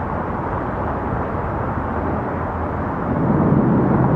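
Steady outdoor rumble, growing louder about three seconds in.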